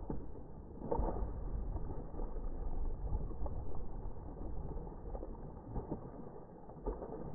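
Water splashing as a hooked fish thrashes at the surface of a creek pool. The splashing comes in irregular bursts, strongest about a second in and again near the end, over a low rumble.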